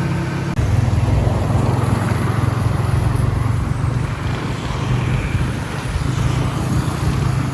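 Motorbike engine running steadily on the move, a low hum with wind and road noise over it, getting a little louder about half a second in.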